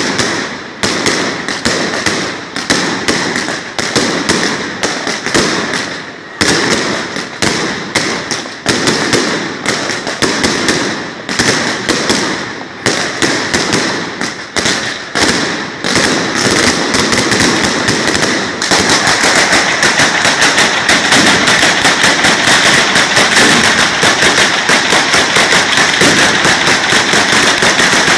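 A batteria, a chain of firecrackers strung along a line of poles, going off in rapid succession. Sharp bangs come in quick irregular clusters at first, then merge into a continuous crackling volley about two-thirds of the way in.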